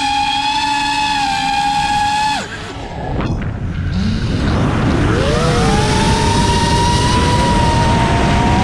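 5-inch FPV quadcopter's motors and propellers whining steadily; about two and a half seconds in the throttle is cut and the whine drops away, leaving a noisy rush of air, then the whine rises steeply in pitch and holds steady as throttle comes back on.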